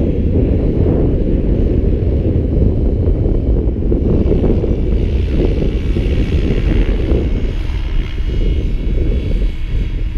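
Wind buffeting the microphone, with the faint whine of a GAUI X7 RC helicopter flying some way off. The whine comes up for a few seconds in the middle, then fades.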